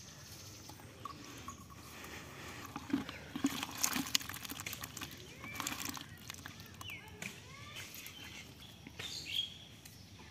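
Birds chirping in short calls, with a cluster of knocks and rustles about three to four seconds in.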